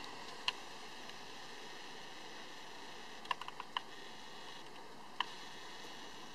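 Sharp clicks from the handheld Sony a55 camera and its lens as it refocuses. There is one click, then a quick run of four about three seconds in, then one more near the end, over a steady faint hiss.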